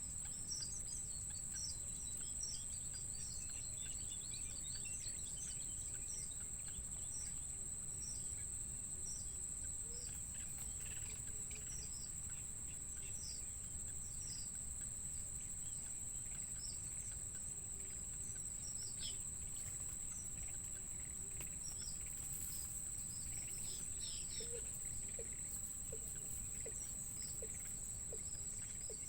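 Birds chirping over and over in short, high chirps, over a steady high-pitched insect drone and a low background rumble. A few lower chirps come in near the end.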